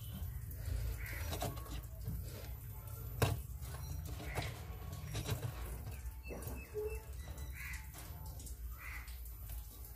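Crows cawing now and then over a low steady hum, with small clicks from wires being handled and one sharp click about three seconds in.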